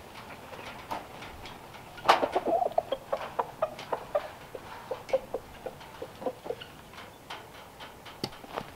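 Poultry clucking, a run of short, irregular calls that follows a sharp knock about two seconds in. Another knock comes near the end.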